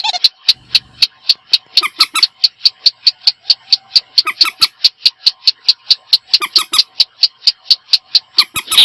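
Recorded calls of waterbirds played as a bird lure: a fast, even series of sharp, high clicking notes, about four or five a second, with a few lower calls mixed in about four and a half and six and a half seconds in.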